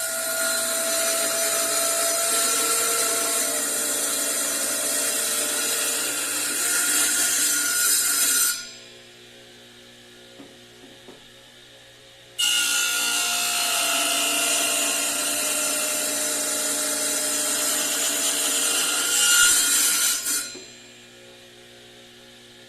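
Electric power tool cutting or shaping wood in two long runs of several seconds each, with a steady motor whine over a loud hiss and a quiet pause of a few seconds between the runs.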